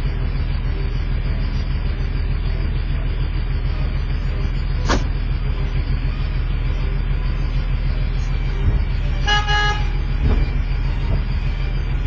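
Steady city-street traffic rumble, with one short vehicle horn honk about three-quarters of the way through and a sharp click about five seconds in.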